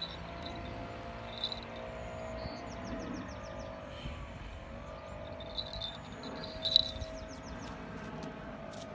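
Outdoor ambience: a steady low drone under two short, fast trills of high chirps, one about a third of the way in and one near the end. A single sharp click stands out about two thirds in.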